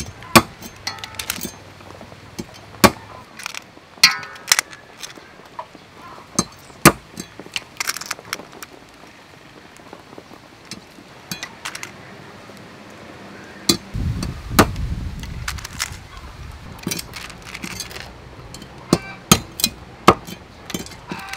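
Knife chopping the tips off small sea snail shells on a wooden chopping block: sharp, irregular cracks and knocks of the blade through shell into the wood.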